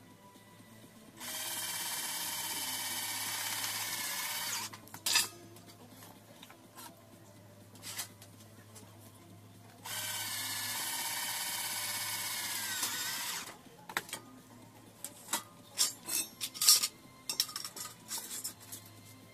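Cordless drill running twice on the metal profile angle, each run steady for about three and a half seconds, then slowing and dropping in pitch as it stops. After the second run come scattered sharp clicks and knocks of metal being handled.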